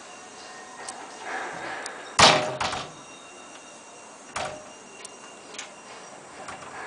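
A door banging shut once, about two seconds in, followed by a few lighter clicks and knocks.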